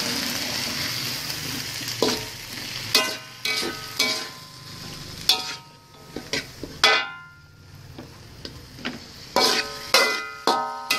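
Carrots and French beans sizzling in a pan just after water is added, the sizzle fading over the first couple of seconds. Then a metal utensil stirring and striking the pan, a string of ringing clinks, coming thickest near the end.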